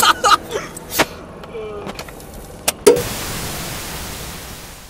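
A hand knocking and rubbing against the camera microphone inside a car, with a snatch of voice at the start. About three seconds in, it cuts to a burst of TV-style static hiss that slowly fades.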